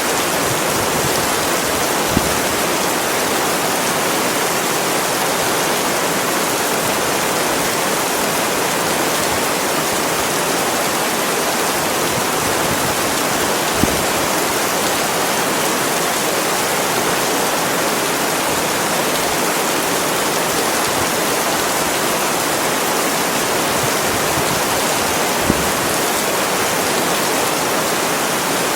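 Steady, continuous heavy rain, an even hiss with no let-up. Three single louder taps stand out briefly: one about two seconds in, one midway, one near the end.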